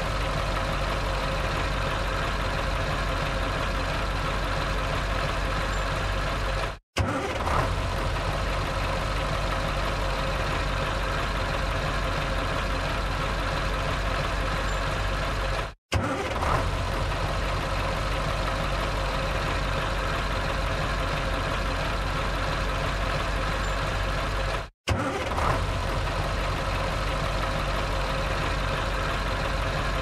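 Truck engine idling steadily at an even pitch. It cuts out to silence three times for a split second, about nine seconds apart, and each time comes straight back in with a short crackle.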